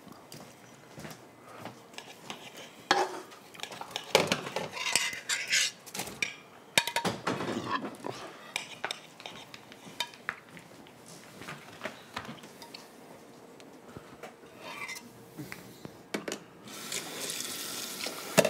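Kitchen clatter: plates, pans and cutlery clinking and knocking irregularly. Near the end a tap starts running.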